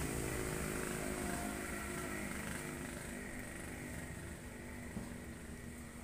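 A motor engine running out of sight, its low hum slowly fading away.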